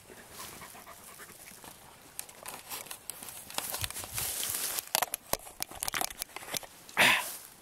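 Crackling and rustling of dry grass and brush, with handling noise as a handheld camera is swung around. A short, loud breath comes near the end.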